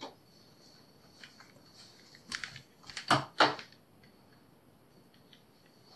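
Clicks and knocks in a small room after the tape playback has stopped: a click right at the start, a few light ticks, then two loud knocks a third of a second apart about three seconds in, with a faint steady high whine underneath.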